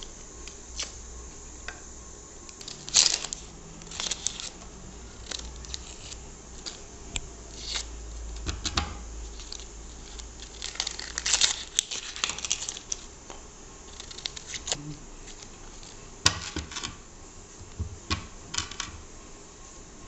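Dry, papery onion and garlic skins crackling and tearing as they are peeled off with a small kitchen knife, with light taps and scrapes of the knife. The crackles come irregularly, loudest about three seconds in and again around eleven seconds.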